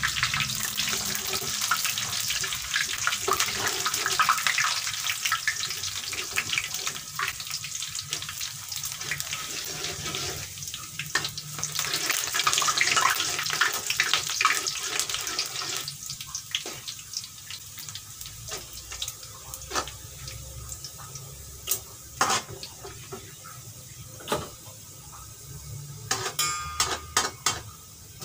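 Oil frying in a pan, a dense sizzling crackle that thins out about halfway through into scattered sharp pops.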